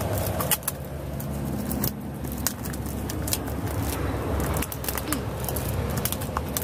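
Clear plastic wrapping crinkling and crackling in short bursts as it is pulled off a plastic bottle packed with plant cuttings, over a steady low hum.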